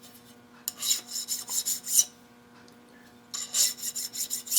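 Two bursts of quick back-and-forth rasping strokes on a small workpiece, each lasting about a second, with a pause between them.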